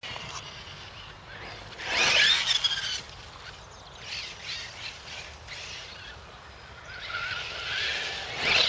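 Losi 8ight TE radio-controlled car's Tenshock X812L brushless motor whining as the car accelerates and slides on a dirt track, its high pitch rising and falling. The whine is loudest about two seconds in and swells again near the end.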